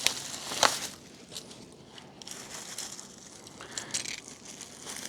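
Packing peanuts and packaging crunching and crinkling as hands dig through a shipping box, loudest in the first second and then fainter scattered rustles.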